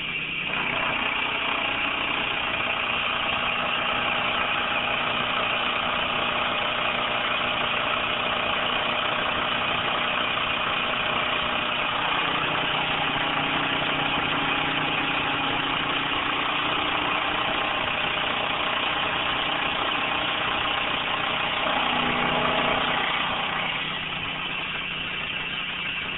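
RF45 milling machine's spindle turning a home-made stainless steel flycutter at about 2000 RPM, taking a 0.020-inch cut under CNC feed: a loud, steady dense cutting noise over the machine's hum. The cutting noise starts about half a second in and drops away about two seconds before the end, leaving the spindle running.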